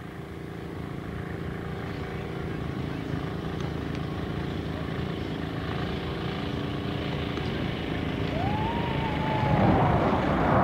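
Jet roar of a B-52H Stratofortress's eight turbofan engines, growing steadily louder as the bomber closes in, over a steady droning hum. A tone rises and falls about eight seconds in, and the roar is at its loudest near the end.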